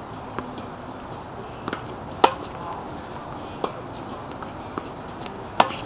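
Tennis rally: a ball struck by rackets, with two sharp, loud hits about three and a half seconds apart and several fainter pops between them.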